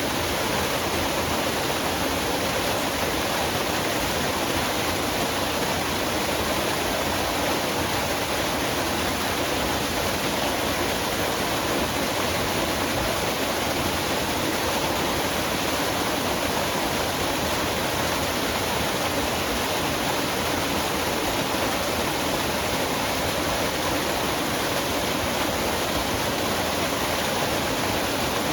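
Forest waterfall: falling water pouring and splashing in a steady, even rush.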